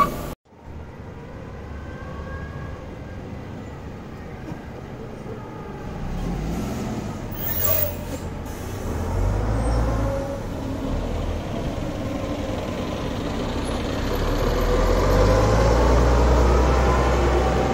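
Diesel engine of a Renault PR100.2 city bus running as the bus drives off and gathers speed. Its low rumble swells twice, the second time loudest, near the end.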